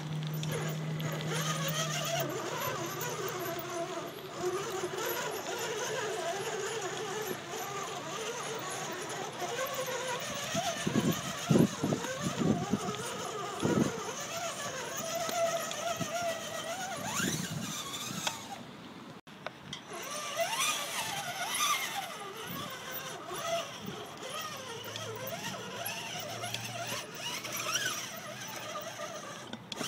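RC rock crawler's brushed 540 electric motor (a Holmes Hobbies Torquemaster Sport 35-turn) and drivetrain gears whining at low speed, the pitch rising and falling as the throttle changes while it crawls over rocks. A few sharp knocks come about a third of the way in.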